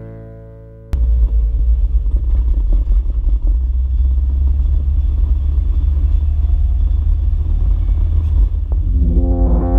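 Ford Escort Mexico driving along, heard from a camera on its bonnet: a steady low rumble of engine, tyre and wind noise. Music fades out within the first second and comes back in near the end.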